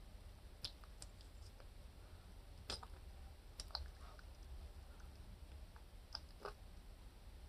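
Quiet eating sounds: several faint, sharp clicks, a few seconds apart, from picking at and biting into boiled seafood. A low steady hum runs underneath.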